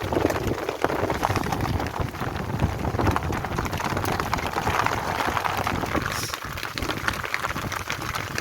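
Steady rain falling, a dense stream of small drop hits without let-up.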